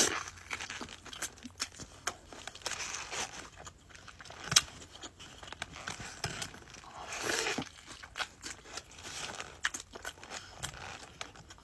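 Close-up eating sounds: a paper burger wrapper crinkling and rustling while a messy In-N-Out burger is eaten, with scattered small clicks and one sharper click about four and a half seconds in.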